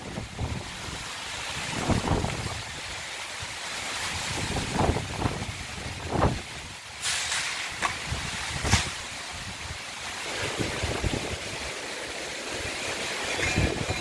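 Strong gusty wind, buffeting the microphone in irregular low rumbles over a steady hiss, with two brief louder bursts about seven and nine seconds in.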